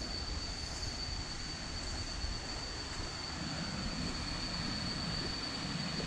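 Forest ambience: a steady high-pitched insect drone, typical of cicadas, holding one unbroken tone over a low rumbling noise.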